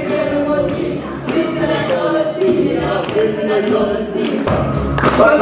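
Several girls singing together into microphones, with music behind them. A deep bass comes in near the end.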